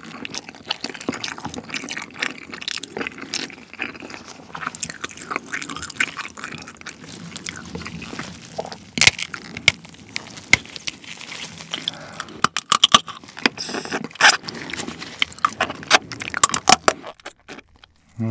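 Close-miked eating of soy-sauce marinated raw crab: wet chewing and small crackles, then a run of sharp cracks as pieces of crab shell and leg are broken apart by hand and bitten, loudest in the second half.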